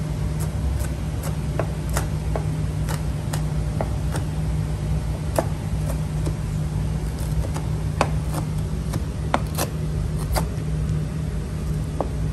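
Chef's knife crunching through the crispy crackling skin of fried pork belly and tapping the cutting board: short sharp crunches at an irregular pace, about two a second. Under them runs a steady low machine hum, the loudest sound throughout.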